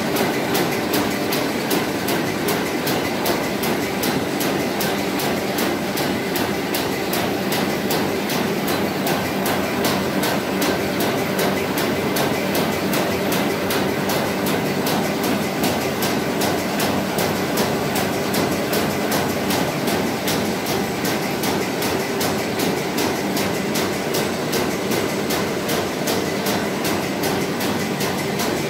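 A Windmöller & Hölscher Matador S flat/satchel paper bag making machine with in-line printer running: a loud, steady mechanical din with a fast, even clatter.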